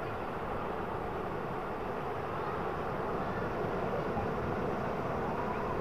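Steady wash of breaking surf mixed with wind rumble on the microphone.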